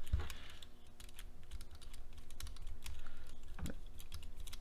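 Rapid small clicks and taps of hand tools and small kit hardware: a nut driver is picked up and a nut is started onto the servo saver of an RC truck's steering, with one slightly heavier knock near the end.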